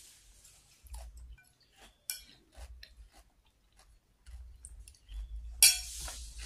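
Close-up eating sounds: chewing, with small clicks of a metal spoon against a ceramic plate, a sharp clink about two seconds in and a louder one near the end.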